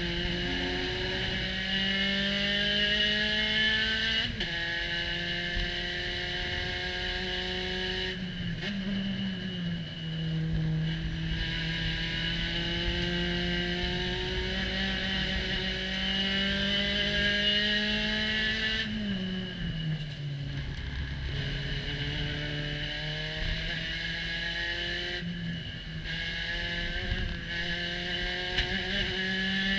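Spec Racer Ford Gen3 race car's four-cylinder engine heard from the cockpit at racing speed, its pitch climbing under full throttle. It drops several times as the driver lifts and brakes for corners, most deeply about two-thirds of the way through, then climbs again.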